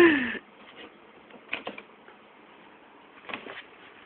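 A brief voice sound falling in pitch right at the start, then a few faint scuffs and rustles of cardboard as a cat noses against the box flap, about a second and a half in and again past three seconds.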